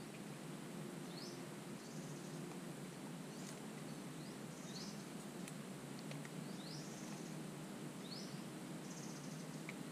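Wetland ambience: a bird repeating a short, high rising call about every second or so, over insects buzzing on and off.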